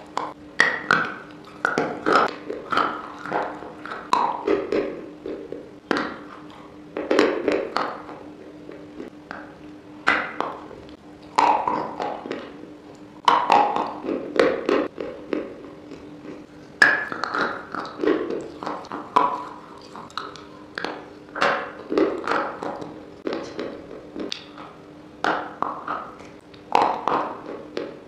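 Close-miked crunching of hard, brittle white sticks being bitten and chewed: irregular clusters of sharp cracks and crunches every second or two, over a faint steady hum.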